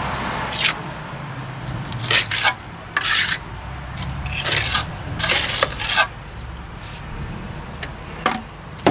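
Steel trowel scraping and rubbing fresh cement plaster onto a concrete block foundation wall, in about half a dozen short strokes with pauses between.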